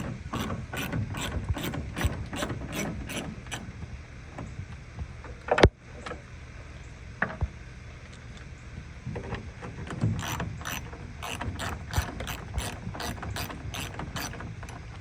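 Hand ratchet clicking as the two 8 mm taillight screws are backed out: a run of clicks about three a second at the start and another from about ten seconds in, with a single sharp knock between them.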